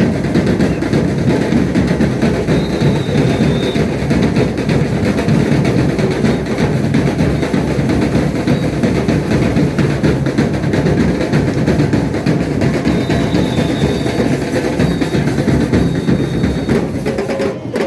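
A comparsa carnival band's drum section playing a dense, driving rhythm, with bass drums prominent.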